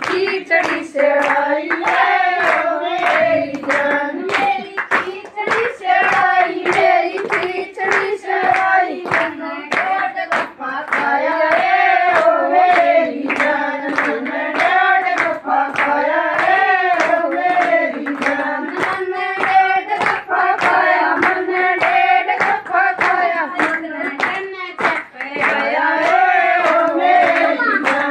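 A group of women singing a folk song together on one melody, clapping their hands in a regular beat.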